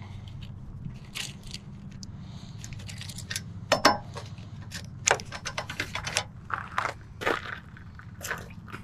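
Keys jangling and irregular sharp metal clicks and clanks as a hitch-mounted bike rack is fitted and locked into a truck's receiver, the loudest clank about four seconds in. A steady low hum runs underneath.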